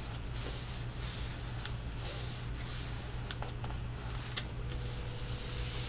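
Cardstock recipe cards being handled and slid into a paper pocket: a soft papery rustle with a few faint, sharp ticks, over a steady low electrical hum.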